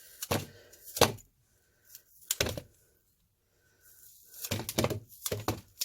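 Several sharp knocks and clicks, single ones at first and then a quick cluster near the end, from handling a cut apple and its core on a kitchen counter.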